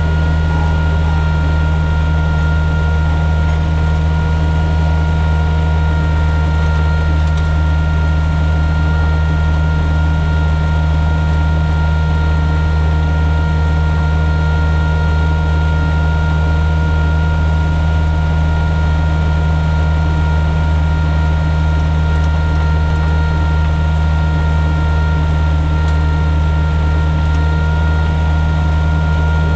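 John Deere 1445's diesel engine running steadily at working speed, driving the front snow blower, with a steady high whine over the low engine hum.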